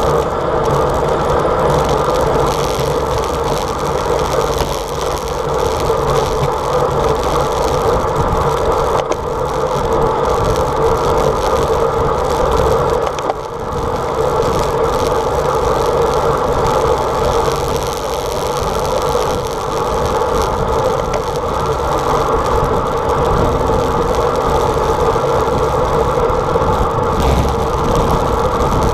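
Steady rush of wind over a bike-mounted camera's microphone, mixed with road bike tyres rolling on asphalt at speed.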